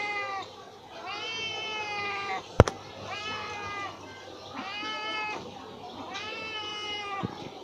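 A kitten meowing over and over: about five long, drawn-out meows, each roughly a second, with short gaps between. A single sharp click sounds about two and a half seconds in.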